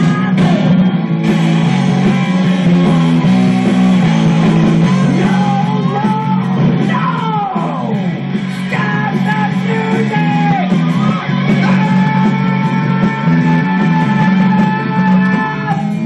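Rock song with electric guitar and singing, played by a band of bird puppets.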